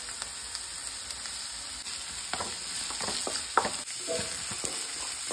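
Chopped onions sizzling as they fry in oil in a nonstick pan, salted to help them soften. From about two seconds in come a few light clicks and scrapes of stirring.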